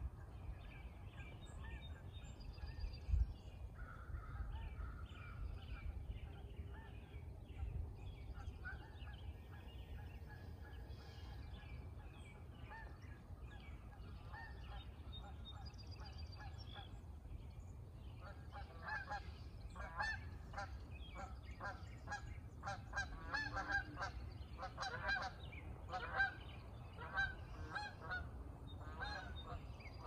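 Wild birds calling at sunrise, many short calls overlapping. About two-thirds of the way in, a louder series of harsh calls starts and repeats several times a second. A low rumble runs underneath, with a brief thump about three seconds in.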